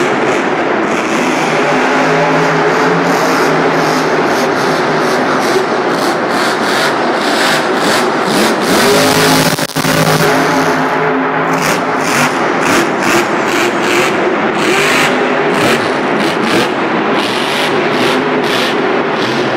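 Grave Digger monster truck's supercharged V8 engine revving hard and continuously, the pitch rising and falling as the throttle is worked. There is one momentary dropout a little before halfway.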